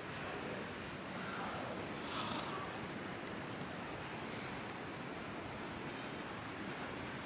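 Steady high-pitched insect trill, with a few short falling chirps over it.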